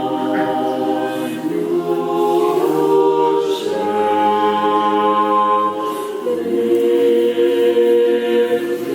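Mixed choir singing Orthodox liturgical chant a cappella, holding long chords that change a few times.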